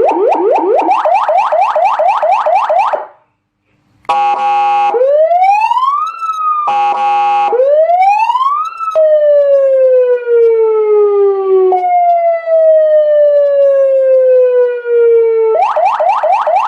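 A 200-watt electronic siren sounding through its speaker and stepping through its tones. It opens with a fast repeating sweep, cuts out briefly, then a horn blast alternates with slow rising glides. Two long falling tones follow, and the fast sweep returns near the end.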